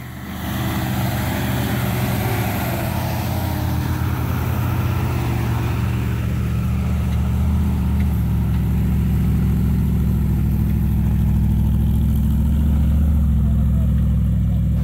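Off-road 4x4 engines pulling uphill in low gear up a steep grassy slope: a loud, steady low engine note that grows a little louder about halfway through as the yellow Jeep climbs close by.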